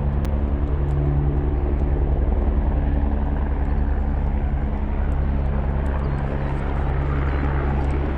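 Low-flying helicopter close overhead, its engine and rotor giving a loud, steady drone with a fast, even rotor beat underneath.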